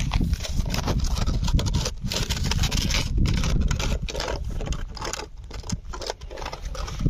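A cat eating: a fast, irregular run of chewing and crunching clicks, over a steady low rumble.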